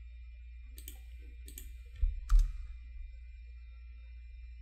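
A few sharp clicks from working a computer, about a second in and again around two seconds in, with two low thumps around the middle, over a steady low hum.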